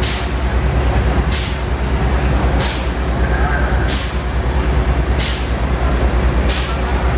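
Fire engine's engine running steadily with a low, pulsing rumble while it pumps water to the hose lines. A short, sharp hiss repeats about every 1.3 seconds, six times.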